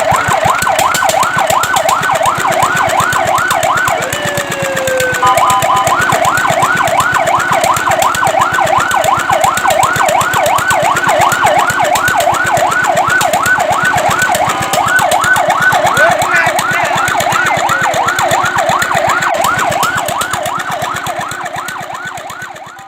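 Fire truck siren in a rapid yelp, its pitch sweeping up and down several times a second. About four seconds in it breaks briefly into a falling glide and a short steady two-note tone before the yelp resumes, and it fades out near the end.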